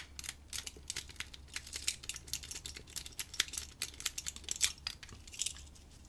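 Lock picking: a thin steel rake pick and tension tool being raked in the keyway of a small brass padlock, using the flat back side of the rake. It makes rapid, irregular light metallic clicks and scrapes as the pins are worked.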